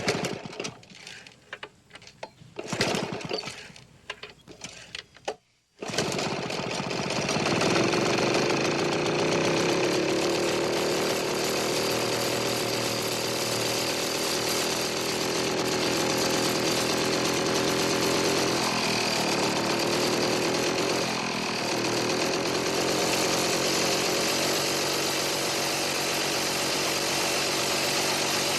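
Indian auto rickshaw being started: irregular knocks and clatter for about five seconds, a short pause, then the engine catches about six seconds in and runs steadily at idle.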